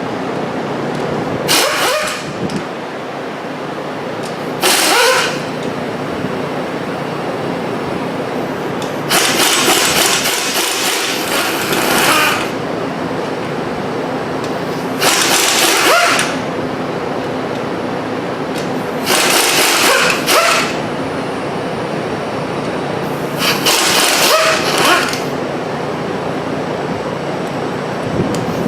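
Pneumatic air tool run in about six short bursts, each from half a second to about three seconds long, several opening with a brief rising whine as it spins up, over a steady shop hum.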